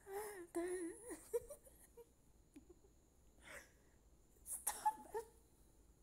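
A woman's wordless vocal sounds, close to the microphone. A wavering hum or whimper fills the first second and a half, then come soft breaths and a short sharp vocal sound about four and a half seconds in.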